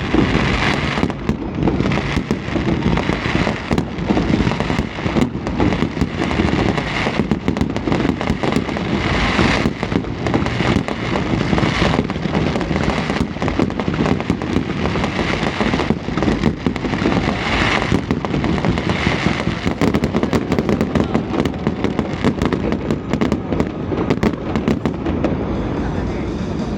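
Fireworks display going off in a dense, unbroken run of bangs and crackling, several bursts a second.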